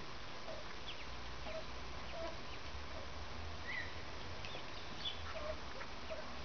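Indian Runner ducks giving short, soft low calls about once a second, with faint high chirps scattered between, over a steady low rumble.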